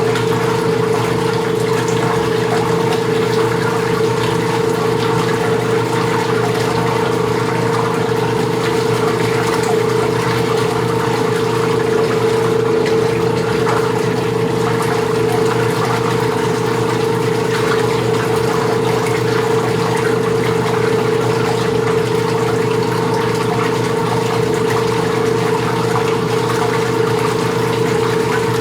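Latina LA551 semi-automatic washing machine running while rinsing, its motor giving a steady hum under the churning of water in the tub.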